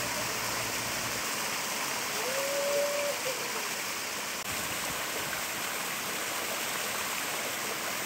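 Small waterfall pouring over a rock ledge into a shallow pool: a steady rush of falling water.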